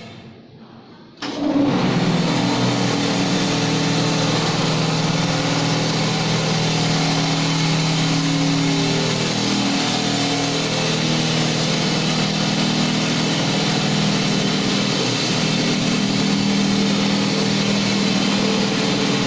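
Electric motor and pump of a wall putty spray machine starting abruptly about a second in, then running steadily with an even, pitched hum.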